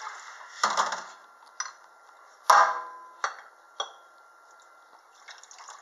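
Drinking glasses and a glass beer bottle knocking and clinking in a stainless steel sink: several separate sharp clinks, the loudest about two and a half seconds in, ringing briefly.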